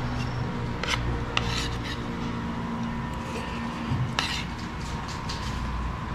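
Spoon and fork scraping and clinking on a plate while eating, with a few short sharp clinks about a second in and again near four seconds, over a steady low hum.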